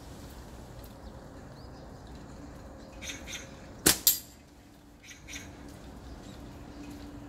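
A slingshot shot: a little faint rustling as the bands are drawn, then about four seconds in a sharp snap of the released rubber bands, followed a fraction of a second later by a second sharp crack, over a steady hiss of rain.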